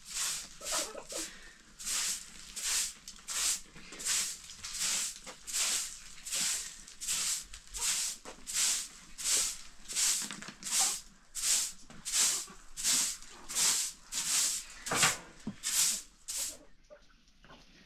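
Rhythmic swishing strokes, about three every two seconds, that stop near the end.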